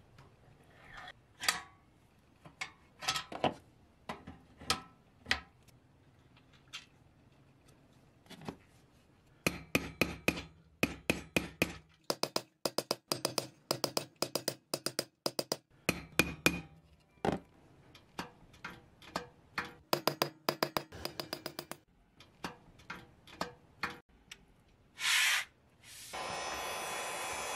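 Claw hammer tapping push-on caps onto the axle ends of a toy truck's wheels: scattered sharp clicks at first, then long runs of quick light metallic taps. Near the end a heat gun switches on with a steady blowing hiss.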